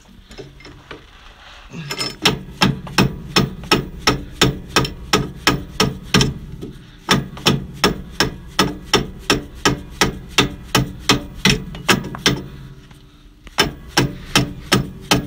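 Rubber mallet beating repeatedly on a tight steel U-bolt bracket to drive it along the tie rod, about three blows a second, in three runs broken by two short pauses.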